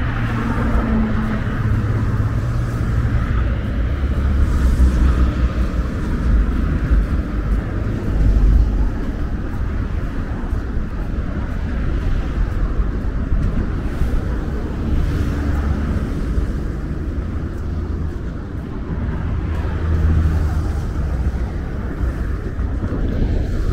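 Steady noise of car traffic passing on a multi-lane road, tyre and engine sound blending into a continuous wash with a strong low rumble.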